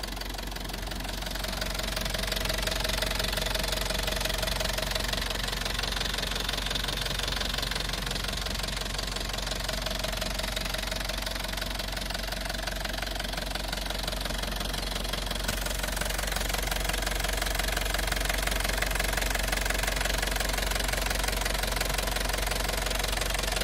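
Fiat Ducato 2.5 TDI four-cylinder turbodiesel idling with a steady diesel clatter, heard up close in the open engine bay.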